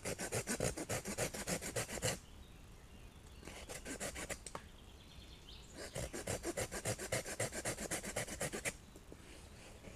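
Silky Pocket Boy folding pruning saw cutting a thin branch with fast rasping strokes, about eight a second. The strokes come in three bouts with short pauses, the middle bout shorter and fainter.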